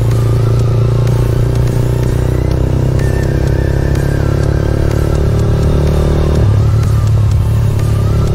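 GPX Legend Gentleman 200's single-cylinder engine running steadily while the motorcycle cruises in traffic. The engine note shifts about six and a half seconds in.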